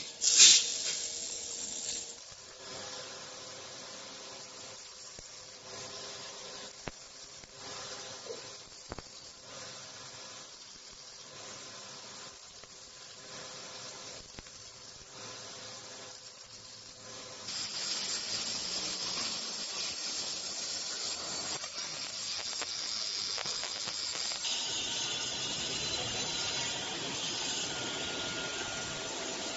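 Robotic arm MIG welding arc: a sharp loud burst about half a second in, then faint irregular crackling. A louder steady hiss takes over about two-thirds of the way through.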